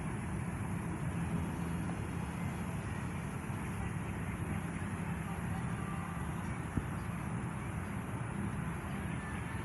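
Steady outdoor background of distant traffic, a continuous low rumble, with one faint click about seven seconds in.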